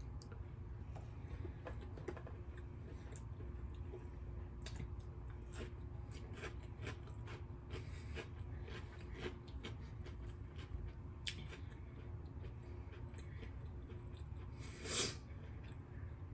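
Close-up eating sounds: a person chewing food, with many small wet clicks and smacks, over a steady low hum. One louder, brief noise about fifteen seconds in.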